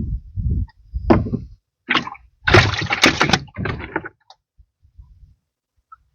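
Water splashing with knocks and handling noise as a hooked fish is brought in: low knocks first, then a run of loud, rushing splash-like bursts from about two to four seconds in.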